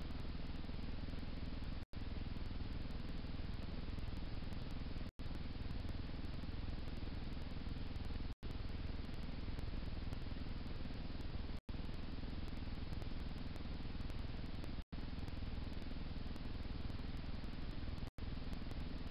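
Steady hiss with a low rumble from a trail camera's microphone, with no distinct animal sounds. It is broken by short, complete dropouts about every three seconds.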